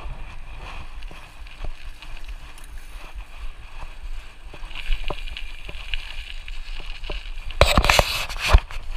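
Wind buffeting the microphone and small wheels rolling over rough pavement while riding downhill, with scattered clicks and rattles. A louder burst of wind and rattling comes near the end.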